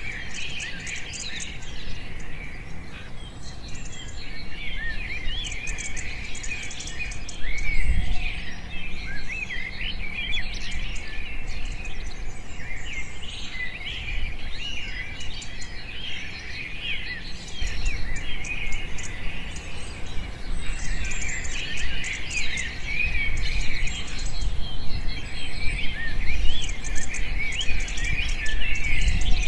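Outdoor nature ambience: a dense chorus of many small birds chirping and twittering without pause, with insects trilling in short bursts at a higher pitch and a low rumble underneath.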